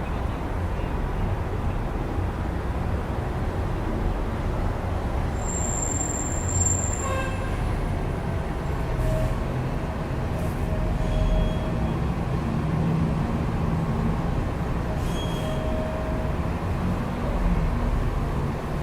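Steady rumble of city street traffic heard through an open window, with a short high-pitched squeal about six seconds in.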